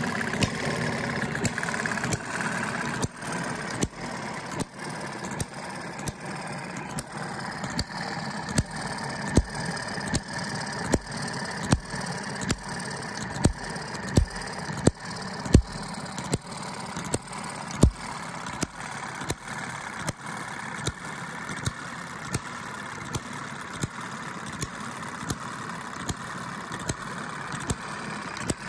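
Scratch-built Kerzel hit-and-miss model engine, a small single-cylinder, running. A sharp regular pop or click comes a little more often than once a second over a steady mechanical whir, with a few pops louder than the rest. It is the hit-and-miss governor at work: the engine fires only once in a while.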